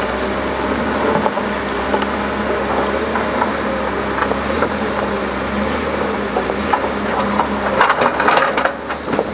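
Hyundai 320LC-9 crawler excavator digging in stony, root-filled ground. Its diesel engine runs steadily under a constant crackle of stones and roots scraping and snapping in the bucket, with a louder burst of knocks and cracks about eight seconds in.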